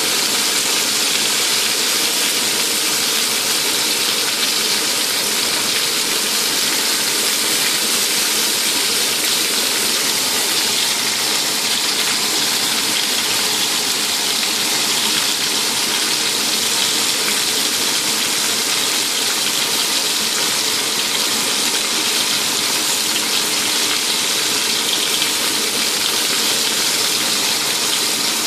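Vegetable skewers and an aubergine slice sizzling in hot oil in a frying pan, a steady, even sizzle throughout.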